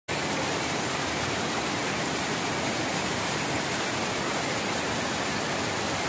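Water rushing steadily over a low plastic-sheeted embankment and churning into foam below, an even rushing noise with no letup.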